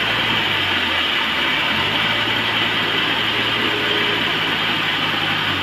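Sawmill machinery running steadily with a dense mechanical clatter, its low motor hum dropping to a new pitch about two seconds in.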